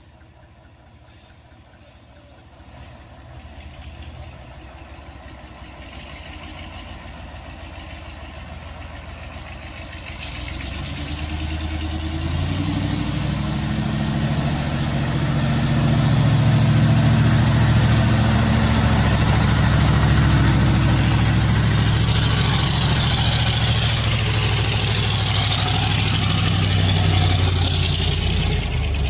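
Heavy truck engine that grows from faint to loud over the first half, then runs loud and steady, as if working hard under load.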